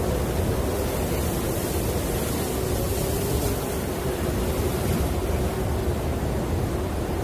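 Snowstorm wind blowing steadily: a deep, even rushing noise with a faint wavering tone in it.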